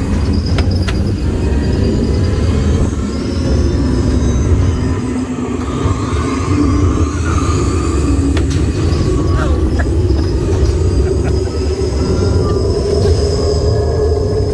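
Test Track ride vehicle rolling along its track: a steady loud low rumble with high whining tones above it and a few sharp clicks and knocks.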